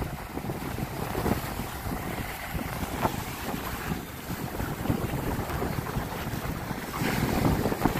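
Wind buffeting the microphone in gusts, over the wash of surf breaking on the shore.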